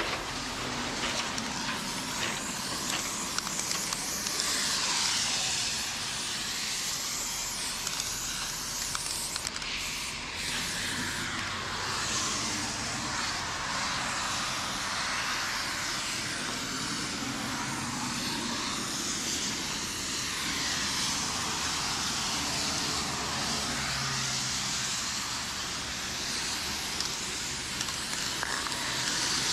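Aerosol spray-paint can spraying in long, nearly unbroken hissing passes, with a slight dip about ten seconds in.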